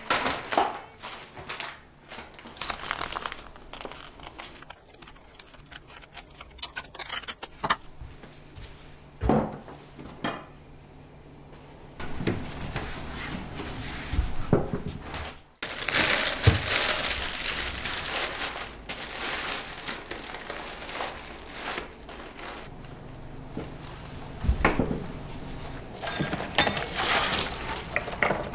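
Paper wrapping, fabric and artificial greenery rustling and crinkling as decorations are handled, with occasional light knocks of things being set down.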